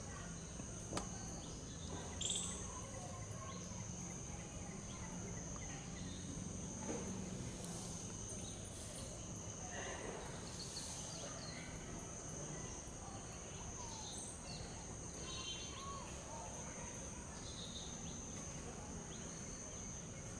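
Outdoor ambience: a steady, high, thin insect drone runs throughout, over a low rumble, with a few faint short bird calls now and then.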